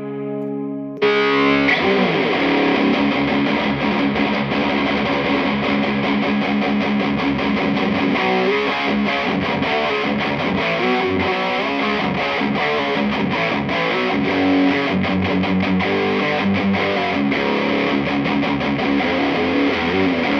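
Distorted electric guitar, a Guild S100 Polara played through a Peavey Bandit 112 amp into a Mojotone 2x12 cabinet loaded with Weber speakers. A held chord fades out, then about a second in a new loud riff starts and is played on without a break.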